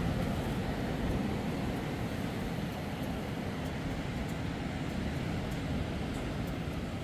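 Steady low rush of ocean surf and wind.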